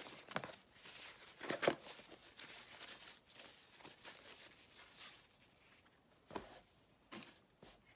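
Packing material rustling and crinkling as it is pulled out of a cardboard shipping box, loudest in the first two seconds, then fainter handling with two soft knocks near the end.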